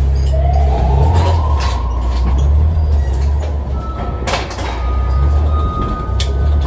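Steady low rumble with steel load-securing chains rattling as they are handled, and one sharp metallic clank about four seconds in.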